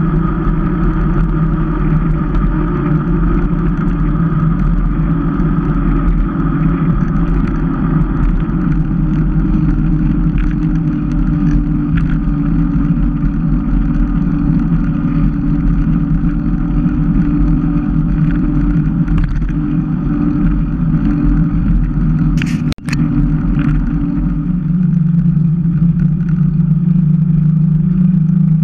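Mountain bike rolling fast on asphalt: a steady hum from the tyres on the road with wind rushing over the camera's microphone, the hum settling lower near the end. About three-quarters of the way through there is a brief sharp clatter as the sound drops out for an instant.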